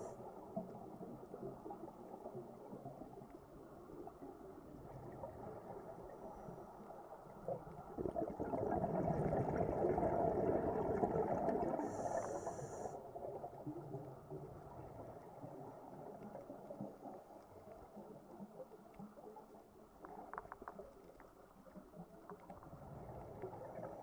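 Underwater ambient noise: a low rushing rumble that swells from about eight seconds in and eases off after about four seconds, with a brief high hiss near the middle.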